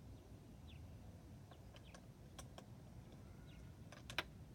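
Faint light clicks and taps from small parts and tools being handled, with a sharper click about four seconds in. A few faint short bird chirps sound behind them.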